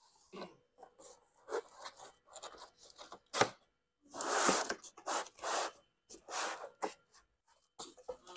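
Laptop packaging being handled: a run of short rustles and scrapes of paper and cardboard, a sharp knock about three and a half seconds in, and a longer scraping rub just after as the moulded paper-pulp packing tray is worked out of the box.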